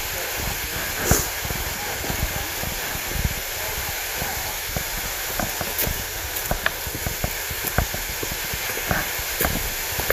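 Hiker's footsteps on a trail: irregular short knocks, one sharper knock about a second in and more frequent steps in the second half, over a steady hiss.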